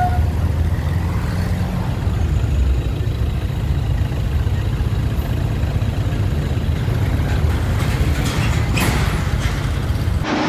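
Motorcycle taxi ride heard from the pillion seat: a steady low rumble of engine, road and wind on the microphone, with a few short knocks about eight to nine seconds in.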